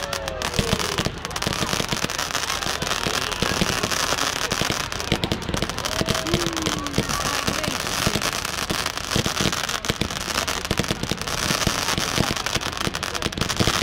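Fireworks display: a dense, continuous run of crackling bangs and pops from bursting fireworks, recorded through a phone's microphone.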